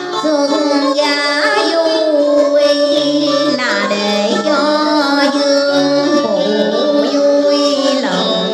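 Music: a slow melody of long held notes that slide in pitch, over a steady accompaniment, with no sung words.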